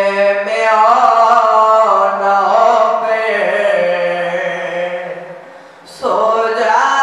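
A young man chanting a noha, a Shia lament, in long held notes. The line trails off near the end and a new one begins about a second before the end.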